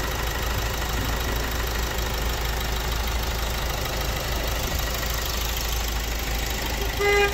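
Opel Insignia 1.6 diesel engine running steadily at idle, its timing chain and oil pump newly replaced. A short beep sounds near the end.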